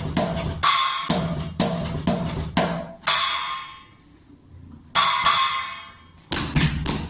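Drum sounds played on a homemade electronic drum kit: a steady beat of about two hits a second, then two crash-cymbal hits a couple of seconds apart that each ring out and fade, before the beat starts again near the end.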